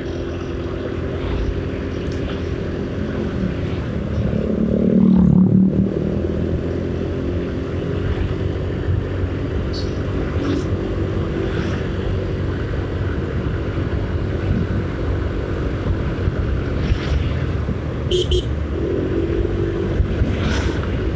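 Motorcycle engine running steadily while riding along a road, with road and wind noise. The sound swells louder for a moment about five seconds in.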